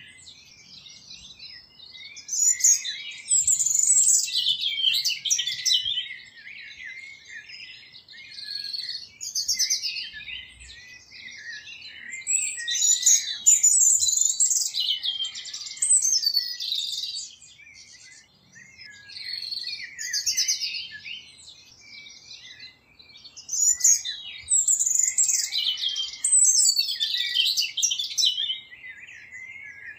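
Common nightingale singing: varied phrases of rapid trills, rattles and whistles, each a few seconds long, with short pauses between them.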